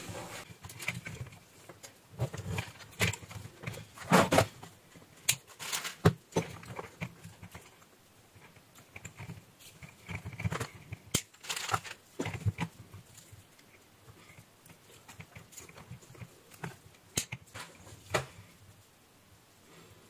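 Scattered light clicks and rustles of hands handling insulated wires and a circuit board on a tabletop while the wires are bundled with a plastic cable tie.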